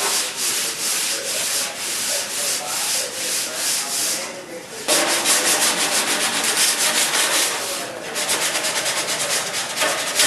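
Sandpaper rubbing over a surface in repeated back-and-forth strokes. There is a short lull about four and a half seconds in, and the strokes quicken from about eight seconds in.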